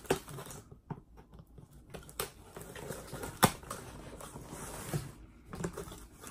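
A cardboard box being opened: a knife slits its packing tape and the flaps are pulled open, with scattered taps and rustles and one sharp click about three and a half seconds in.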